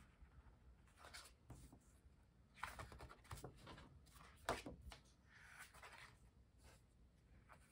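Faint rustling and flicking of sticker-book pages being turned by hand, a few short paper sounds, the sharpest about four and a half seconds in.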